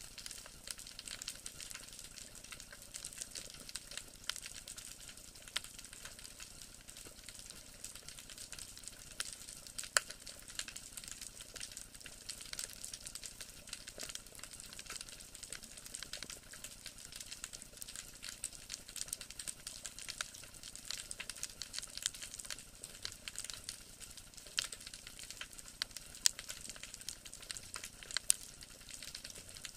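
Underwater crackle of snapping shrimp: a dense, steady patter of small clicks with a few sharper, louder snaps, the loudest about ten seconds in and twice near the end.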